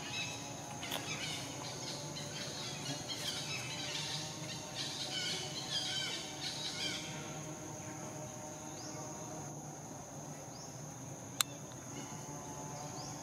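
Outdoor tropical ambience: a steady high insect drone, with busy chirping calls for the first seven seconds or so, then fading. A single sharp click comes near the end.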